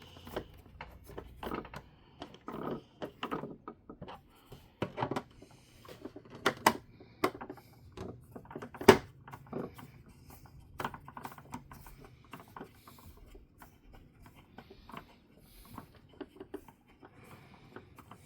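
Hard plastic parts of a toy car being handled and worked with a small screwdriver: irregular clicks and taps, with a sharper knock about nine seconds in.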